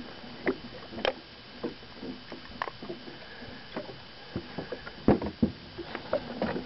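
Irregular knocks, taps and thumps of a walleye being handled and measured in a fishing boat, the loudest knocks coming about five seconds in.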